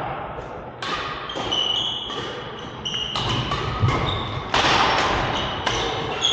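A badminton rally: a series of sharp racket hits on the shuttlecock and thuds of footfalls on the court, with short high shoe squeaks on the court floor between them, in a large echoing hall.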